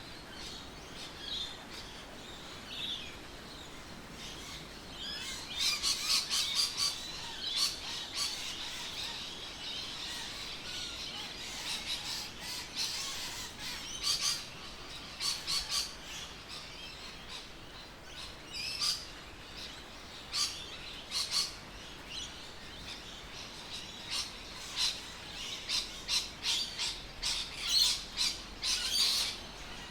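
Birds chirping and calling, with many short, sharp chirps coming in clusters throughout.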